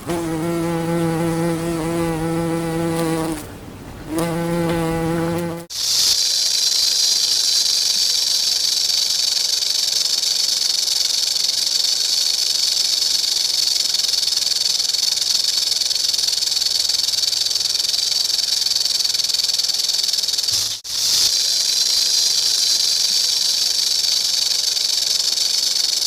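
Insect sounds. A low steady wing buzz sounds twice with a short gap and stops about five seconds in. It is followed by a long, steady, high-pitched insect drone that breaks off once briefly near the end.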